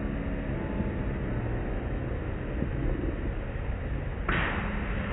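Automatic tunnel car wash heard from inside the car: a steady rumble of wash machinery and running water, with a louder hissing rush starting about four seconds in.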